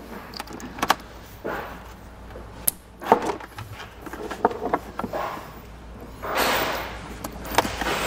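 Plastic plug-in connectors of a Curt T-connector wiring harness being handled and pushed together with the vehicle's factory tail light connectors: several sharp clicks, and a rustle of wires lasting about a second around six seconds in.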